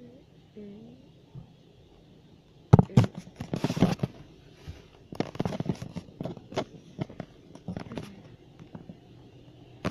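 Automatic car wash working over a car, heard from inside it: a run of irregular knocks and crackles starting about three seconds in and lasting about six seconds, as the spray and wash equipment hit the body.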